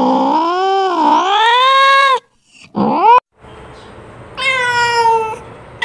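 Domestic cat meowing: a long drawn-out meow that dips and rises in pitch and cuts off about two seconds in, a short rising meow around three seconds, then a steadier meow about a second long near the end. The calls end abruptly, with a faint low hum behind the last one.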